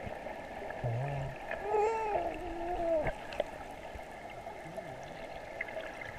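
Muffled underwater sound in a swimming pool: a steady dull water noise, with a muffled voice gliding up and down for about a second near the middle.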